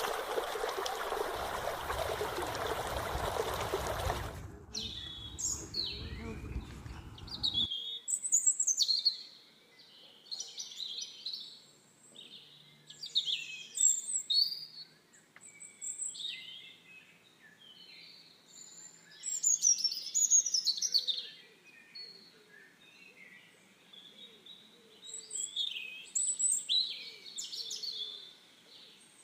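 Small birds chirping and singing in short, varied phrases throughout. For the first four seconds or so a loud, even rushing noise covers them; it then drops and cuts off at about eight seconds in.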